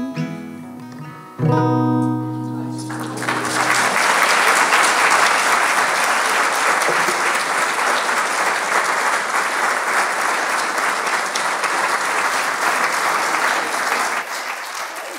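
Closing chords on an acoustic guitar ringing out, with one last strum about a second and a half in, then an audience applauding from about three seconds in, thinning near the end.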